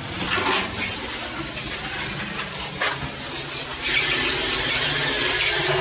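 Cordless drill driving a screw up into a steel ceiling frame to fix ke clips for wood-plastic ceiling panels. It runs as a loud, steady, high-pitched whir starting about four seconds in and stops suddenly near the end, after a few short bursts of noise earlier.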